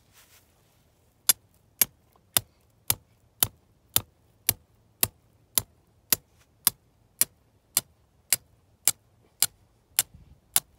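A hammer striking the top of a steel rebar stake, driving it into the ground: about eighteen sharp, evenly spaced blows, roughly two a second, starting about a second in.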